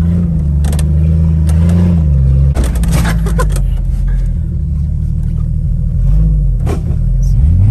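A Jeep's engine heard from inside the cab as it drives a rough trail. The revs rise and fall a few times and climb sharply near the end, and several knocks and rattles come through from the body over the bumps.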